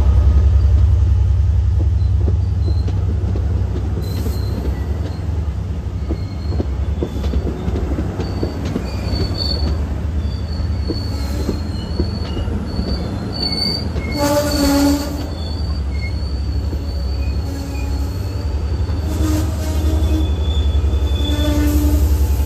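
Long Island Rail Road bilevel passenger coaches rolling past close by as the train pulls out of the station: a steady low rumble of wheels on rail, with thin, intermittent wheel squeals and a brief louder squeal about 14 seconds in.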